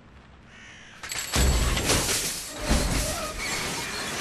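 A row of nested metal shopping carts crashing and clattering as a driverless RV rolls backwards into them and shoves them along. The loud metal rattling and banging starts suddenly about a second in and keeps going.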